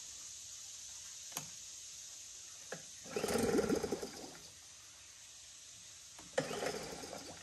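Small Yamaha 3 hp outboard being pull-started: two pulls of the recoil starter, about three seconds apart, spin the engine over briefly and it does not catch, as it has sat unused for a long time. Two light clicks come before the first pull.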